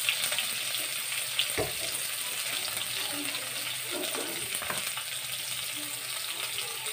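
Sliced onions sizzling in hot oil in a kadai, a steady frying hiss, with a soft knock about one and a half seconds in.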